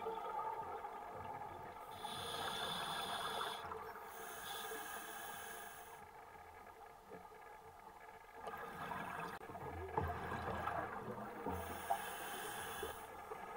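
A scuba diver breathing through a regulator, heard through the underwater camera housing: stretches of hissing inhalation alternate with bubbly, rumbling exhalation.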